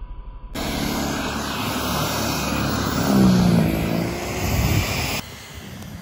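Corded electric snow thrower running and throwing snow: a loud, steady motor whir with the noisy churn of the snow, starting abruptly about half a second in and dropping to a quieter whir near the end.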